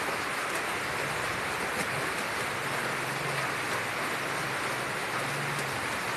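A steady, even hiss, like rain or rushing water, with a faint low hum that comes and goes.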